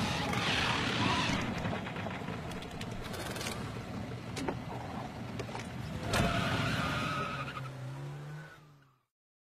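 Cartoon sound effects of a small three-wheeled cart driving and skidding, with scattered clicks and a louder hit about six seconds in. A tone rises near the end, and the sound cuts off suddenly about nine seconds in.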